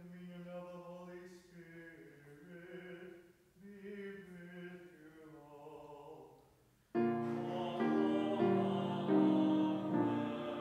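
Voices chanting a liturgical line in the church. About seven seconds in, the church organ comes in suddenly and much louder, holding sustained chords that change every second or so.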